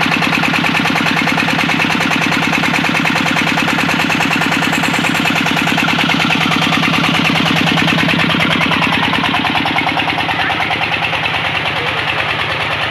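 Single-cylinder diesel tubewell engine running with a rapid, even beat. About ten seconds in, the beat slows a little and the sound gets slightly quieter.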